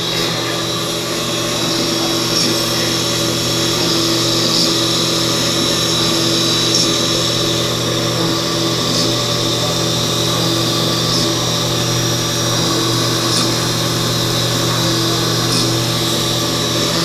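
CNC machine running steadily, its motor and spindle giving an even, high whine, with a faint tick about every two seconds.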